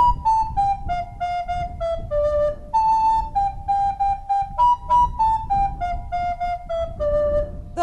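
A recorder (block flute) played solo: a simple melody of clear, separate notes, about two or three to the second, ending on a longer low note near the end.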